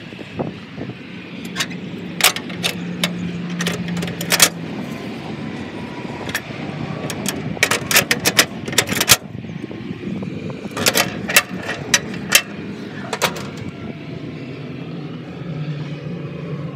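Sharp metal clanks and rattles in three bursts as the steel smoker's rod latch and door are worked, over a steady low hum.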